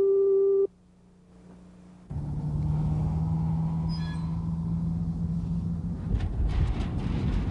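A steady electronic tone cuts off less than a second in. After a short near-quiet gap, a low, steady vehicle-like rumble with a held hum sets in, growing noisier with scattered clicks near the end.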